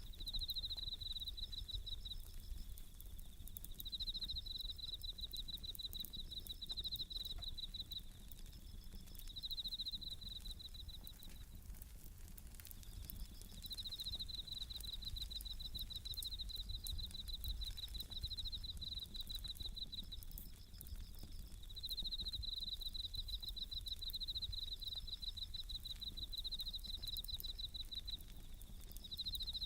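Bell crickets (suzumushi) singing: high, rapidly pulsed trills in runs of a few seconds with short pauses between them. Under them is a low steady rumble with faint crackles from a wood campfire.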